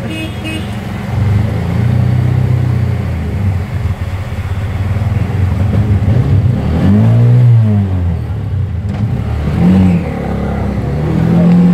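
Auto rickshaw engine running in slow, stop-start traffic through floodwater. It revs up and back down about seven seconds in, with shorter revs near the end.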